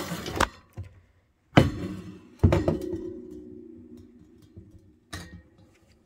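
Two sharp metal knocks a little under a second apart as bicycle rear-hub parts and the wheel are handled on a wooden workbench during hub disassembly. The second knock leaves a ringing tone that fades over about two seconds, and a lighter knock comes near the end.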